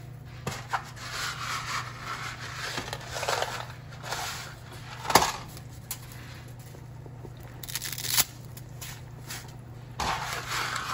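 Dry whole-grain spaghetti being snapped in half by hand and dropped into a pot of boiling water: crackling and rustling of the brittle strands, with a few sharp cracks, the loudest about halfway through. A steady low hum runs underneath.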